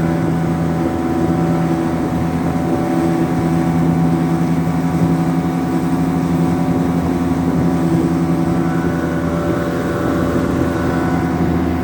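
Boat engine running steadily at a constant speed, with a loud, even drone.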